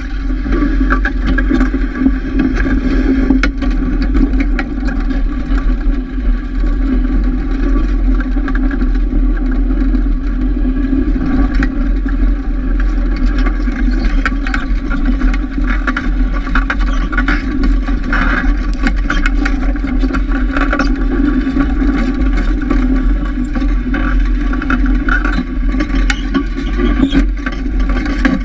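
Snowmobile engine running steadily while pulling a sled loaded with firewood logs over snow.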